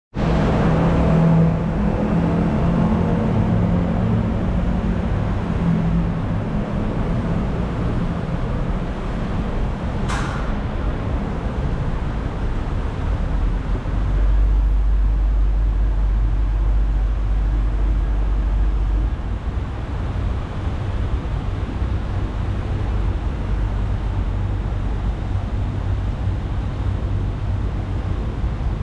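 Escalator running: a steady low mechanical rumble heard from on the moving steps, with one short sharp click about ten seconds in.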